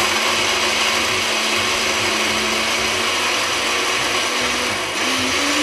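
Electric countertop blender running at full power, grinding soaked almonds with water and cardamom seeds into a fine paste. The motor's whine rises in pitch about five seconds in.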